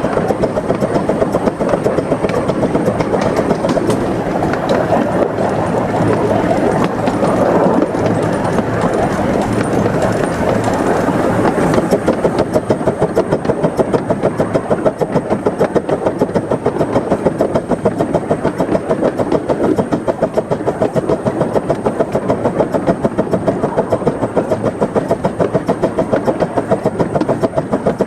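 A 15-inch-gauge Krupp 4-6-2 Pacific miniature steam locomotive running under steam, heard from the footplate: a fast, even beat of exhaust chuffs over the noise of wheels on rail. The beat becomes sharper and more regular a little under halfway through.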